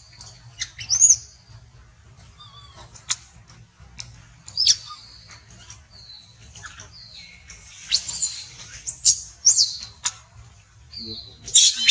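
Shrill high-pitched animal calls: a string of short chirps, squeaks and whistles, some gliding up or down in pitch. The calls come in loose bursts and are densest about eight seconds in and near the end.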